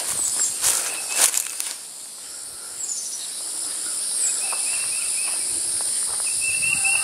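Steady, high-pitched insect drone, with footsteps rustling through weeds during the first two seconds and a few short bird chirps and quick chattering notes later on.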